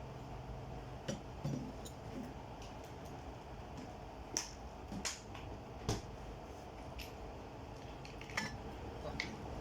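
Scattered light clicks and small knocks of utensils against dishes, about eight in all, over a steady low background.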